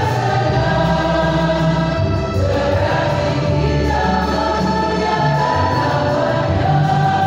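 Choir of mostly women's voices singing a hymn over steady low bass notes.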